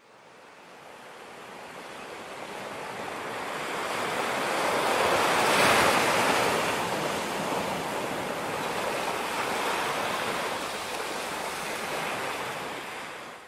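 Rushing water of a waterfall: a steady, even rush that fades in over the first few seconds, is loudest about halfway through, and fades out at the end.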